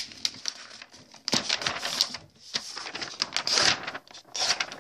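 A sheet of paper being torn up by hand: a run of short, irregular rips and rustles.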